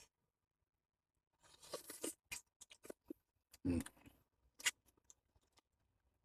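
Faint, scattered scrapes and clicks of a pot and dishes being scrubbed and handled, starting about a second and a half in, with one duller knock near the middle.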